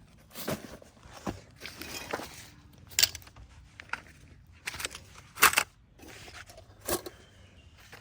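Irregular handling noises: a series of short scrapes, rustles and clatters, about six in all, the loudest about five and a half seconds in.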